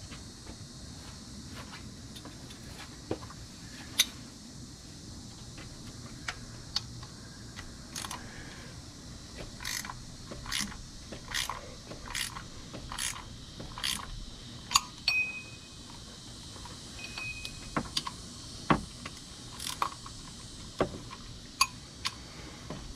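Light metallic clicks and taps from a hand wrench turning a bolt on the thermostat housing of a 5.7-litre Hemi V8, running the bolt in. The clicks come irregularly, with a steadier run of them, about one every half second, in the middle.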